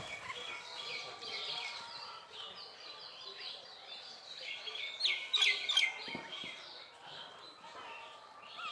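Small birds chirping in quick, repeated short falling notes, busier and louder from about five seconds in, with a few sharp clicks around then.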